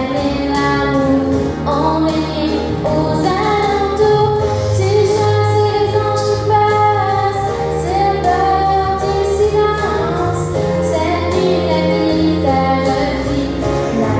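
A girl singing a French song into a microphone, holding long notes, over an instrumental accompaniment with a steady ticking beat.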